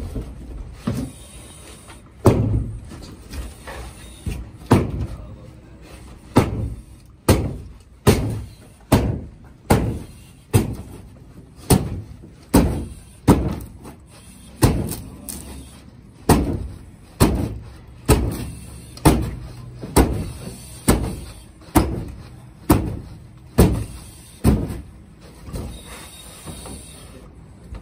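Pick head axe chopping into an OSB sheathing wall: a steady run of short, sharp blows a little more than one a second, breaching through the wall.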